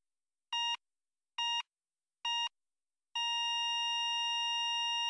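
Electronic heart monitor beeping three times, a little under a second apart. From about three seconds in it holds one steady unbroken tone at the same pitch: a flatline, the sign that the heart has stopped.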